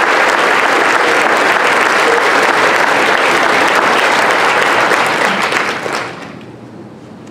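Audience applauding, dying away about six seconds in.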